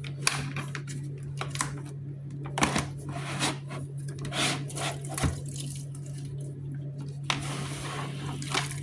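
Flat mop pad being dipped and worked in the water-filled wetting chamber of a self-cleaning mop bucket: irregular splashes and plastic knocks, then a short steady rush of water near the end. A steady low hum runs underneath.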